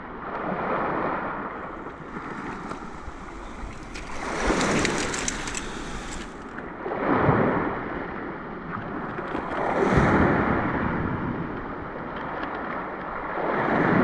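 Small waves washing in over a rocky, weedy shoreline and draining back, rising and falling in surges about every three seconds.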